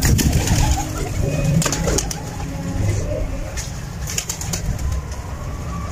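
Domestic pigeons cooing, with a few sharp flaps of wings as birds flutter about the loft.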